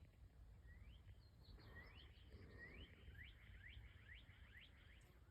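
Faint songbird song: a run of about a dozen short, rising whistled notes that come faster and faster, over a low steady rumble.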